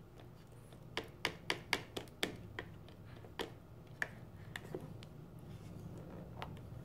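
Quick light clicks of a plastic baby spoon tapping and scraping against a plastic plate: a run of about six in just over a second, then a few scattered ones.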